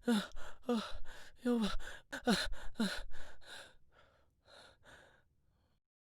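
Heavy, rapid panting of a person out of breath from running: quick gasping breaths, several with a short falling groan of voice, about two a second. The breaths weaken after about three and a half seconds and stop near the end.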